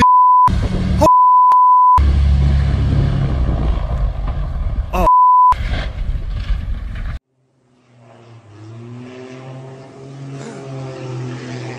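Censor bleeps, a steady beep tone sounding three times, cut over a loud low rumble from an airplane crashing near the runway. After a short drop to silence, a fainter steady low drone with wavering tones above it follows.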